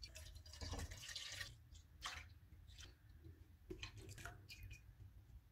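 Faint splashing and trickling of milk being poured from a jug into a granite-coated frying pan.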